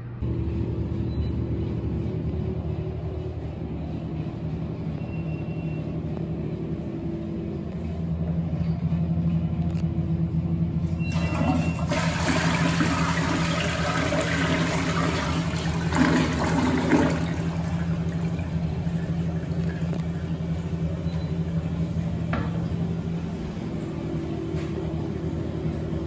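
Toilet flushing: a sudden rush of water starts about eleven seconds in, swirls for around six seconds and ends in two louder gurgles. A steady low hum runs underneath throughout.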